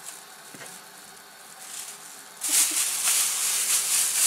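Thin plastic bag crinkling and rustling as a small child's hands crumple it, starting suddenly about halfway through after a quieter stretch and staying loud and crackly.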